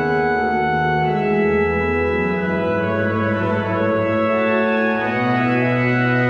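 Schnitger pipe organ playing slow contrapuntal music: several voices held at once over long, slowly changing bass notes.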